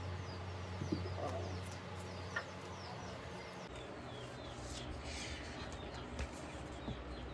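Faint chirping of small birds: many short, quick, falling chirps over a low steady hum, with a few soft clicks.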